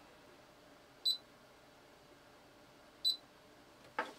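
Hantek DSO2C10 digital oscilloscope giving short, high key-press beeps as its front-panel buttons are pressed: two beeps about two seconds apart. A click near the end.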